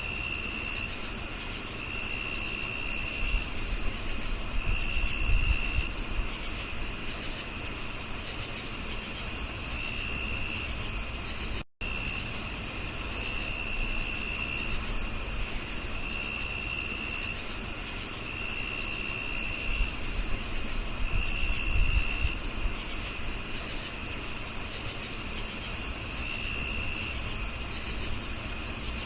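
A chorus of crickets chirping: a steady high trill, a regular pulsed chirp about two or three times a second, and a lower trill in roughly one-second bursts with pauses between. The sound cuts out for a split second a little before halfway.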